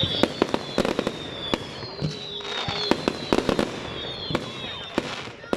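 Fireworks going off: a rapid, irregular series of sharp bangs and crackles. High whistling tones, falling slightly in pitch, run over the first second and again through the middle.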